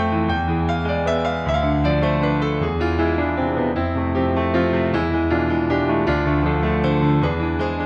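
Background piano music: sustained chords over low bass notes that change about once a second.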